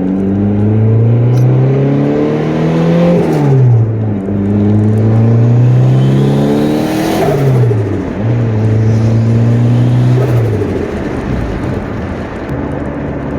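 Turbocharged Honda Accord engine heard from inside the car, accelerating hard through the gears: the engine note climbs three times, dropping at each upshift. A brief hiss comes at the first two shifts, typical of turbo blow-off or flutter.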